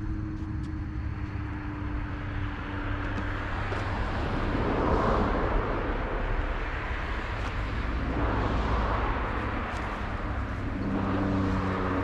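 Motor vehicle noise: a steady low engine hum, with a louder rushing noise that swells for several seconds midway and fades again.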